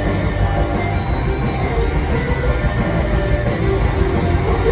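Live rock band playing an instrumental stretch, electric guitars and drum kit at a loud, steady level, heard from among the audience.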